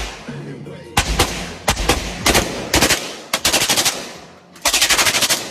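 Gunfire: a handful of single shots, then two rapid automatic-fire bursts, the last of them running about a second.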